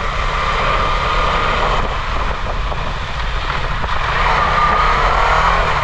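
KTM 250 Adventure's single-cylinder engine running at a steady cruise under heavy wind and road noise on the on-bike microphone. A faint whine rises slightly in pitch about four seconds in.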